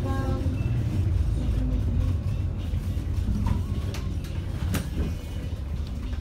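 City bus heard from inside the cabin while driving: a steady low rumble of engine and road noise, with a single sharp click about five seconds in.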